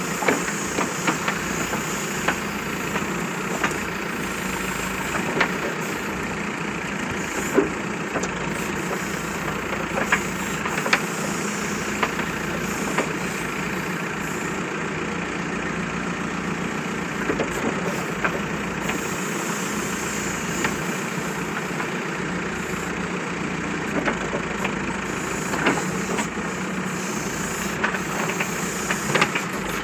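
Diesel engine of a Manitou TLB 844S backhoe loader running steadily while the backhoe arm digs, with occasional sharp knocks from the arm and bucket working.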